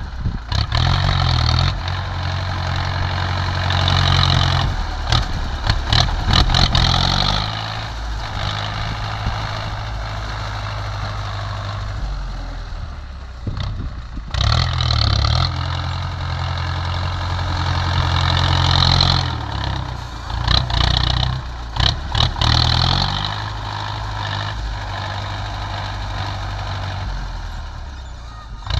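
Heavy diesel engine of earthmoving machinery running and revving up under load twice, settling back to a lower speed in between, with scattered metallic clanks.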